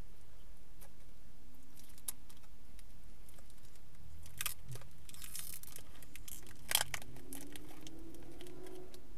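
Inside a stopped car's cabin: a low steady hum, with scattered small clicks, a spell of crinkling rustle about four and a half seconds in, and one sharper click near seven seconds.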